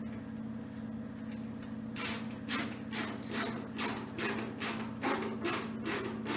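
Rhythmic rasping strokes from hand work fastening heat-tape straps to a melamine cage, about two or three a second, starting about two seconds in, over a steady low hum.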